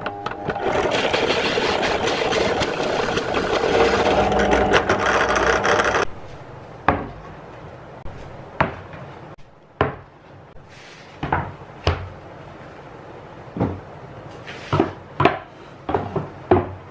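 Drill press cutting through plywood with a hole saw, a steady cutting noise that stops abruptly about six seconds in. After that, about ten sharp, irregularly spaced wooden knocks as plywood boards and wooden boxes are set down and shifted on a workbench.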